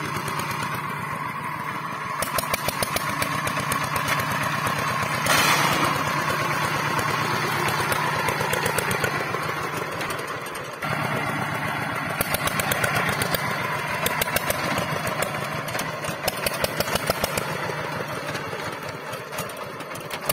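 Single-cylinder diesel engine of a two-wheel power tiller running under load with a rapid, even chugging, louder for a moment about a quarter of the way in.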